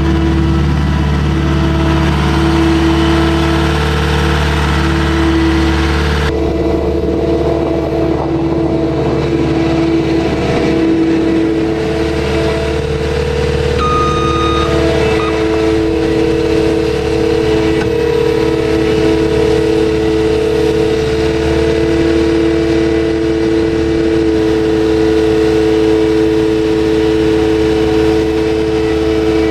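Full-scale skid steer engine running steadily under load, with a change in its tone about six seconds in.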